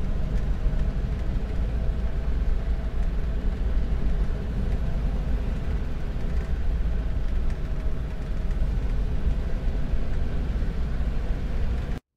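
A Ford's engine and road noise while driving at a steady speed, a constant rumble with a faint steady hum. It cuts off abruptly near the end.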